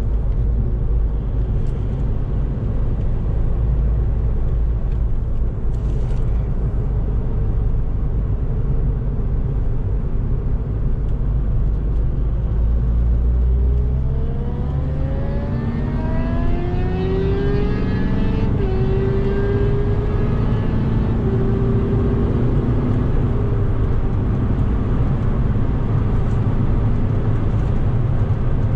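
Volkswagen Golf Mk5's 2.0 TDI four-cylinder diesel running hard at speed over steady road noise. About halfway through the low rumble drops away briefly, then rising tones climb over several seconds as the car accelerates again.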